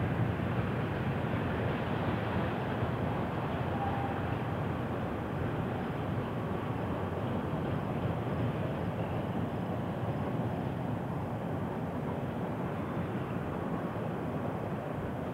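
Freight train's covered hoppers and tank cars rolling past: steady noise of steel wheels on the rails, slowly fading as the rear of the train moves away.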